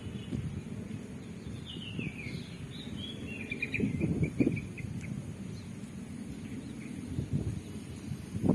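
A bird sings a short twittering phrase of high chirps about two seconds in, ending in a quick run of repeated notes, over low steady outdoor noise.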